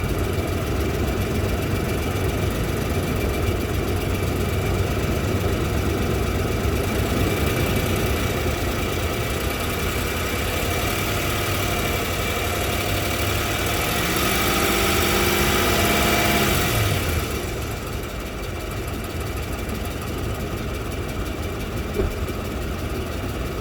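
Toyota 2UZ-FE 4.7-litre V8 in a Land Cruiser 200 running with a knock from the left side of the engine; the owner has ruled out the valves, the fan clutch and the exhaust manifold, which was welded and given a new gasket, and the cause is still unknown. About two-thirds of the way in the engine rises in pitch and level for a few seconds, then settles back. A single sharp click sounds near the end.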